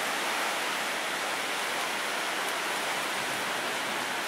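Heavy rain pouring down steadily in a thunderstorm, an even hiss with no separate hits.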